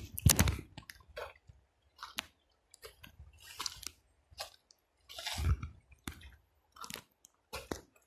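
Footsteps crunching and knocking on dry river stones and gravel: an irregular run of short crunches and clicks with brief gaps between, the longest crunch a little past five seconds in.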